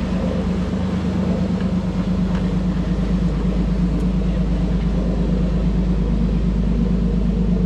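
A sailboat's engine running steadily as the boat motors along, a low, even drone with a light pulse, under a haze of wind and water noise.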